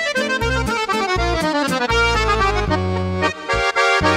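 Bugari EVO B55 chromatic button accordion playing quick runs of melody on the right-hand buttons over a left-hand bass-and-chord accompaniment.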